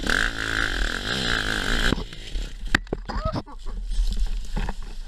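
An enduro motorcycle engine runs with its pitch wavering for about two seconds, then cuts off abruptly. A run of knocks and clatter follows as the bike and rider go down in the leaves.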